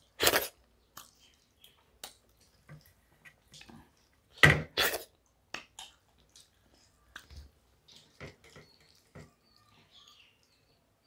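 Eating rice and curry by hand: wet chewing and lip-smacking, with fingers squishing rice against steel plates. The sounds come in scattered short clicks and smacks, louder once just after the start and twice in quick succession about four and a half seconds in.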